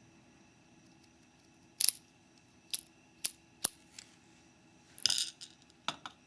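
Small metal lock parts and tools clicking against each other while a Mauer NW4 euro cylinder is taken apart: four sharp clicks in quick succession, then a short scrape and one more click near the end.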